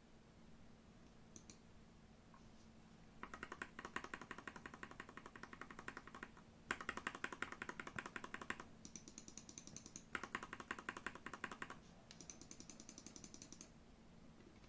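NextTime 75 mechanical keyboard with Gateron G Pro Red linear switches and XDA keycaps being typed on: a few single key clicks, then from about three seconds in, five runs of fast keystrokes with short pauses between.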